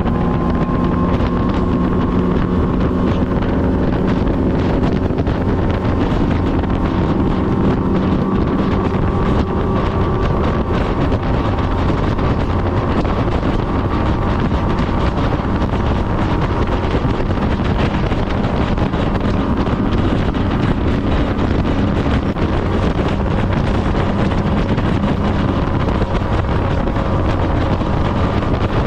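Outboard motor of a fishing boat running steadily under way, its engine tone held level, with wind buffeting the microphone and water rushing past the hull.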